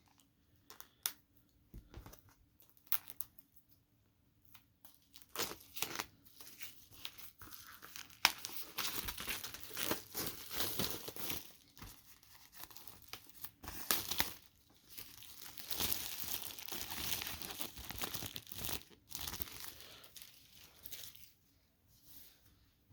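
Shrink-wrap being torn and crinkled off a vinyl LP jacket by hand: a few light handling clicks at first, then a long stretch of tearing and crumpling plastic.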